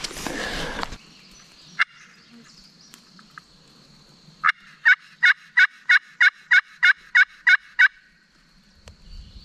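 A series of about eleven evenly spaced hen turkey yelps, about three a second, after a single note a few seconds earlier. It opens with a second of rustling.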